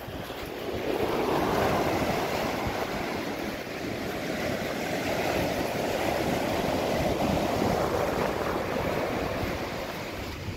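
Surf breaking and washing up the beach, swelling about a second in and easing near the end, with some wind rumble on the microphone.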